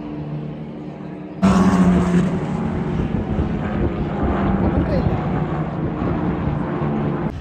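Engine drone of racing cars at a circuit, steady and low, which jumps abruptly to a louder mix of engine noise and voices about a second and a half in.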